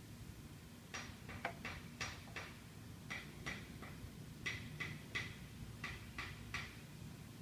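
Light, sharp clicks in quick irregular clusters, about fifteen over five seconds, from fitting a new windscreen and its mounting bolts onto a Yamaha FJR1300 motorcycle.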